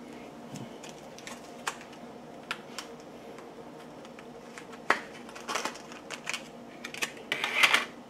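Clear plastic clamshell packaging of an NVMe SSD being handled and opened: scattered sharp clicks and taps of hard plastic, with a longer, louder rustle near the end.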